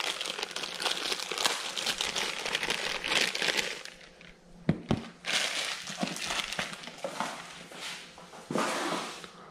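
Plastic packaging bag crinkling and rustling in bursts as it is handled, with one sharp knock about halfway through.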